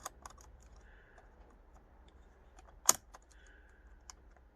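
Scattered light plastic clicks and rattles of hands working at the steering-wheel control wiring connectors, with one sharp click about three seconds in.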